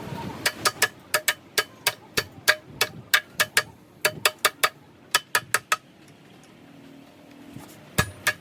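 A hammer striking metal in quick repeated blows, about three or four a second, each with a short metallic ring, as a truck gearbox part is tapped into place. The blows stop for about two seconds near the end, then start again.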